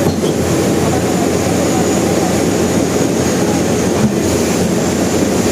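Concrete pump running with a loud, steady rumble, with a single small knock about four seconds in.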